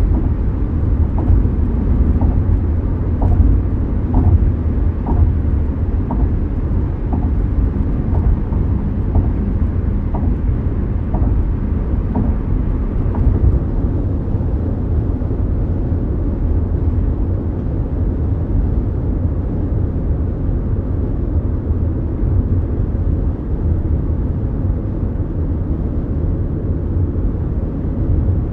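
Inside the cabin of a Mazda CX-5 small SUV cruising on the highway: a steady, even rumble of engine and road noise. A faint tick comes about once a second during the first half.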